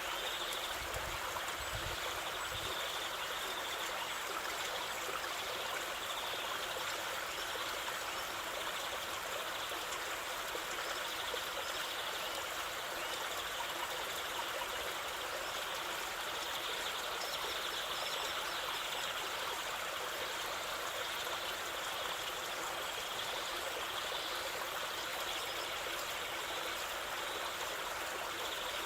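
Waterfall: water rushing and splashing in a steady, unbroken hiss, with little bass. A few brief low thumps come about one to two seconds in.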